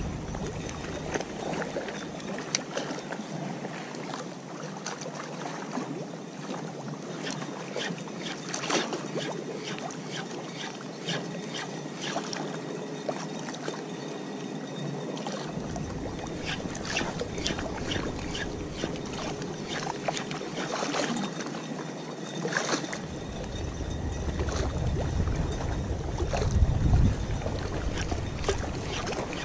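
Wind blowing over the microphone above moving canal water: a steady rushing hiss with gusts of deep rumble in the second half, and scattered sharp clicks and knocks.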